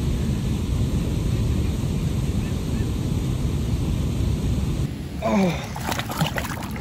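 Steady rushing noise of wind on the microphone over flowing water. About five seconds in it gives way to close-up water splashing as a tarpon is held by the jaw in the current.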